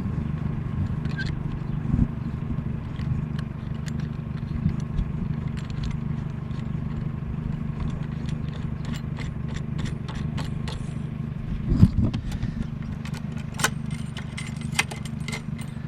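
Tools or hands clicking and scraping on a discarded sink's metal fittings while a stubborn part is worked loose, the clicks coming thicker in the second half, over a steady low hum.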